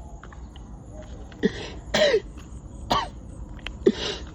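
Short cough-like voice sounds, four or five of them about a second apart, each a brief rasp, some with a falling pitch.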